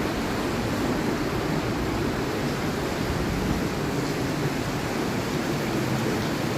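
Hinterrhein river water rushing steadily through the rocky Via Mala gorge, a constant dense roar with no breaks.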